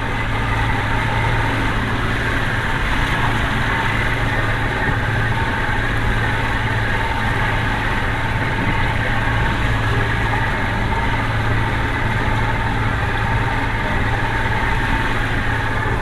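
Boat engine running steadily at low speed, an even hum with no change in pitch.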